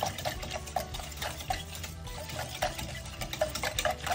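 Wire whisk stirring buttermilk brine in a metal mixing bowl, clicking against the bowl about four times a second as the salt and sugar are mixed in to dissolve. Soft background music underneath.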